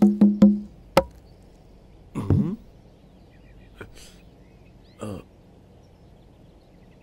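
Cartoon soundtrack sound effects: a short hum at the start, a sharp knock about a second in, and brief gliding voice-like sounds near two and five seconds, with quiet between.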